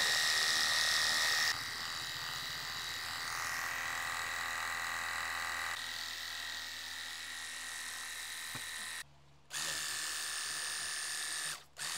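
Xiaomi cordless car washer spraying, its pump motor running with a steady high whine over the hiss of the water jet. It drops in level after about a second and a half and cuts out briefly twice near the end.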